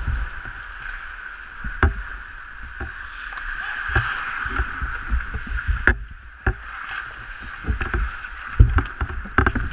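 Ice hockey play heard through a goalie's mask-mounted camera: skate blades scraping the ice under a steady hiss, with sharp clacks of sticks and puck scattered through and dull low thumps from the goalie's own movement.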